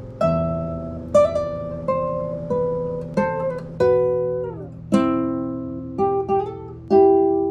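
Background music: a slow melody of single plucked notes on a guitar-like string instrument over a held low note, with one note sliding downward in pitch about four seconds in.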